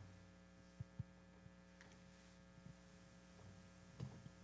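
Near silence: room tone with a steady electrical hum, broken by a few faint knocks, two about a second in and one near the end.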